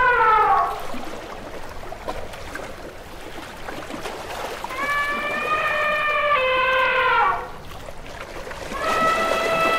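Elephant trumpeting: three long horn-like calls, each held steady and then sliding down in pitch. One fades out under a second in, one runs from about five to seven and a half seconds, and a third starts near the end. Running stream water sounds between the calls.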